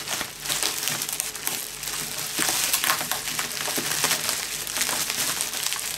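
Plastic bubble wrap crinkling and crackling as hands pull and unwrap it from a metal exhaust pipe flange.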